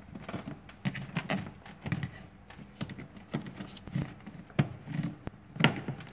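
Plastic cowl cover below the windscreen of a Mercedes B-Class being worked loose by hand: irregular clicks, taps and knocks of the plastic panel and its clips, with the loudest snap near the end.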